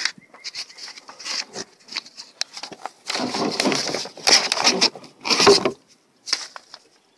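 Paper sheets of hand-drawn plans rustling and crinkling as pages on a clipboard are flipped and handled, with light clicks and knocks. The rustling is loudest in a stretch from about three seconds in to nearly six seconds.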